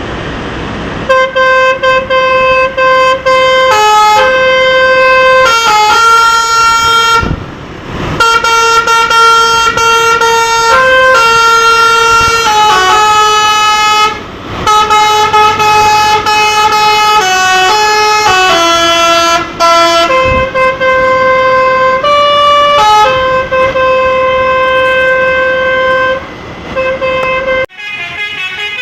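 A Basuri 'telolet' multi-tone musical horn playing a loud tune of held notes that step up and down in pitch, with a few short breaks. It cuts off near the end.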